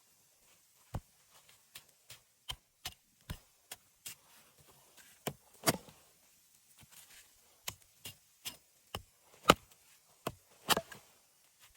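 Wood being chopped with a hand tool: a run of sharp, irregularly spaced strikes, a few of them much harder than the rest.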